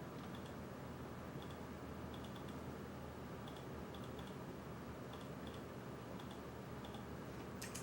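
Cooling fans of a ZOTAC GeForce GTX 1070 AMP! Edition graphics card running under load, a steady low whirr. Light clicks come in small groups of two or three throughout, with one sharper click near the end.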